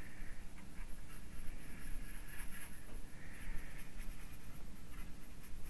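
Paintbrush rubbing acrylic paint onto a hardboard panel in short strokes, the clearest about halfway through.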